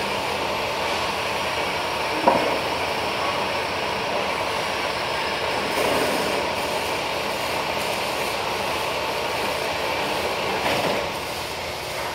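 Metal-cutting band saw running steadily while cutting through metal stock, with a short sharp knock about two seconds in and a couple of lighter bumps later. The noise drops somewhat near the end.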